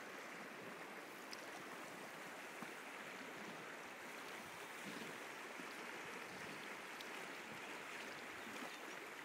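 Steady sound of the Firehole River's current flowing past, a continuous even rush of moving water.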